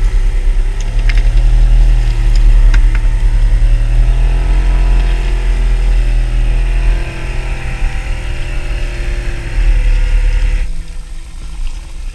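A small fishing boat's engine running steadily, a loud low hum, with a few light clicks about one to three seconds in. The hum drops away abruptly near the end.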